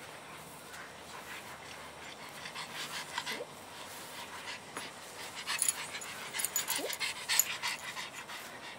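Pug panting with its mouth open, in two spells of quick huffs, with two brief rising whines, about three seconds in and near seven seconds, as it waits for a treat.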